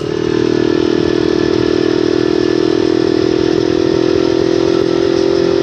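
Vespa scooter engine running steadily while the scooter rides along at an even speed.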